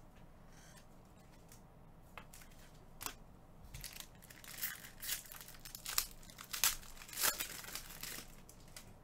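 Foil wrapper of a Panini Mosaic basketball hobby pack crinkling and tearing as it is ripped open by hand. It comes as a run of sharp crackles starting about three seconds in, loudest near the end.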